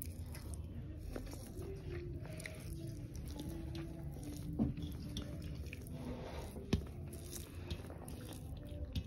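Fingers mixing and mashing rice with fried vegetables and greens on a metal plate, making soft squishing and small clicks. A faint tune plays underneath.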